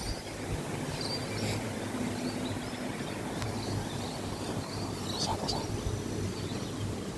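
A few short, high bird chirps scattered over a steady low background rumble.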